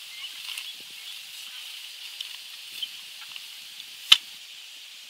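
Steady high-pitched hiss of insects calling in the grass, with a few faint ticks and one sharp click about four seconds in.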